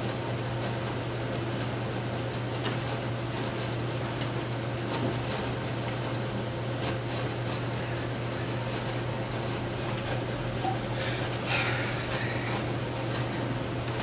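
Steady low hum of an air conditioner, with clothes and a fabric duffel bag being rustled and handled, and a few light clicks; a louder rustle comes about eleven and a half seconds in.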